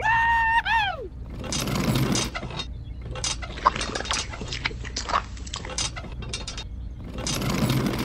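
Wet concrete mix pouring from a miniature concrete mixer's drum into a small metal wheelbarrow, with a string of clicks and splatters. It opens with a short high tone that holds, then glides down.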